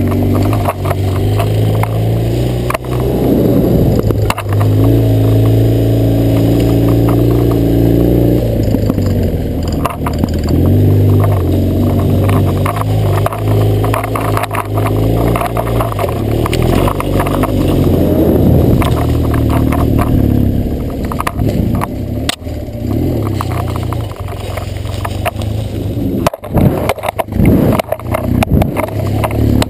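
BMW R100GS Paris-Dakar's air-cooled boxer twin running under load off-road, its revs rising and falling as the throttle is worked. Frequent knocks and clatter from the rough trail run through it, heaviest near the end.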